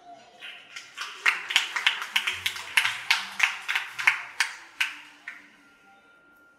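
A short round of hand clapping, about three claps a second, swelling and then dying away over some five seconds.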